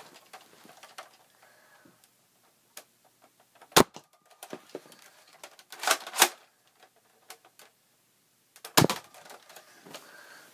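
A Nerf Mega foam-dart blaster firing: two sharp, loud snaps about five seconds apart, near four and nine seconds in. A shorter scraping rattle comes between them.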